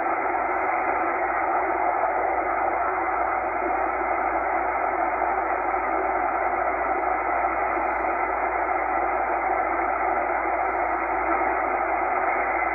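Tecsun H-501X shortwave receiver in upper sideband, tuned slowly across the 8 MHz shortwave band: a steady hiss of band noise and static through the narrow sideband filter, with a few faint steady tones under it.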